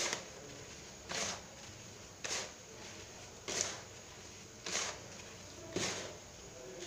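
Hands rubbing oiled, sugared semolina between the palms in a bowl: a short gritty rustle about once a second, six strokes in all.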